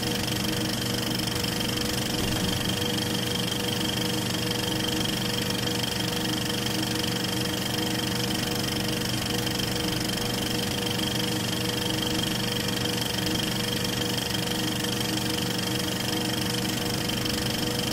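Film projector running steadily: a constant mechanical whirr with several steady tones in it.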